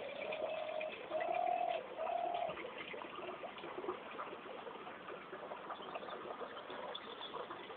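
A dove cooing, three notes in a row in the first couple of seconds, the middle one loudest, with faint chirps of small birds in the background.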